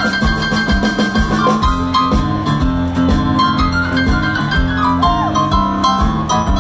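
Live Chicago blues on a grand piano, with a drum kit keeping a steady beat.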